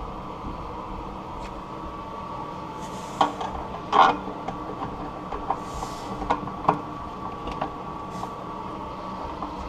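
Light metal clicks and scrapes of a screwdriver and vise grips working a seized, rusted toilet tank bolt that will not turn either way, with the sharpest clack about four seconds in. A bathroom exhaust fan hums steadily underneath.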